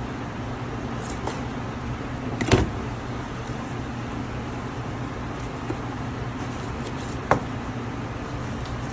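Steady low background hum, with a knife knocking on the cutting board about two and a half seconds in and a sharper click a little before the end, as a whole chicken is cut into pieces.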